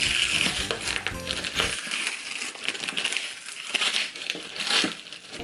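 Package wrapping being torn open and crinkled by hand, with background music under it for the first couple of seconds.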